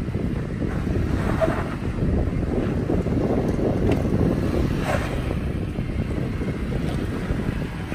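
2018 Toyota 4Runner's 4.0-litre V6 engine working as the SUV crawls up a sandstone rock ledge, mixed with wind buffeting the microphone.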